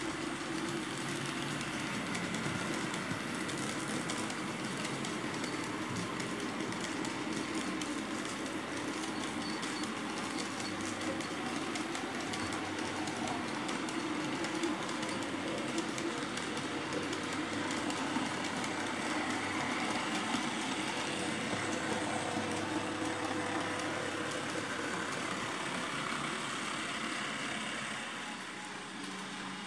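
TT-scale model train running: the locomotive's small electric motor whirring and the freight wagons' wheels rolling and clicking over the rails, steady, a little quieter near the end.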